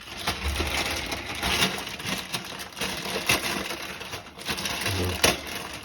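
Plastic drain parts being handled: a steady crinkling and rustling with several sharp clicks and knocks.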